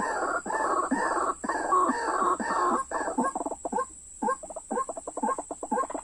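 White-breasted waterhen calling: a repeated run of call notes, about two a second, that breaks about halfway into shorter, quicker notes.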